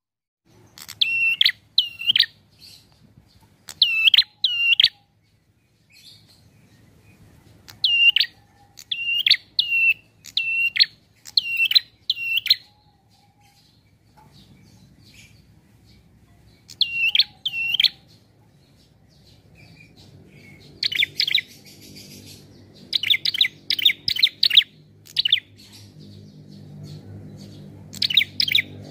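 A caged prenjak calling: loud, sharp, hooked chip notes, mostly in pairs and short clusters with pauses between. About three-quarters of the way in it turns to a faster, rougher chattering run. A faint low rumble grows underneath near the end.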